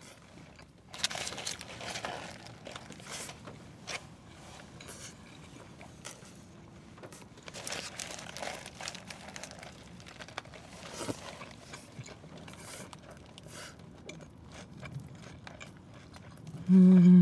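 Close-miked eating of a Burger King Whopper: bites into the bun and lettuce with crunching, chewing and lip smacks, and the paper wrapper crinkling. Near the end comes a short, loud hummed "mm" with the mouth closed.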